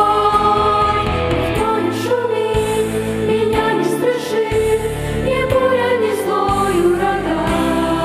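Youth vocal ensemble singing a Christian song into microphones over instrumental accompaniment with a low bass line.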